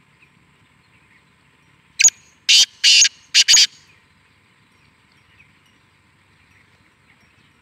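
Black francolin calling once: a quick series of five loud, rasping notes about two seconds in, lasting under two seconds.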